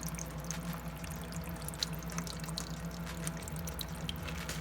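Small tabletop decorative waterfall fountain running, water trickling and dripping over its rocks, with scattered little drips. A steady low hum sits underneath.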